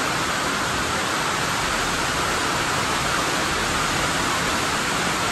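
Rain coming down, a steady even hiss with no breaks.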